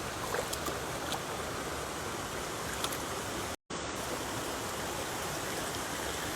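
Steady rush of flowing river water. It drops out for a split second a little over halfway through, at an edit.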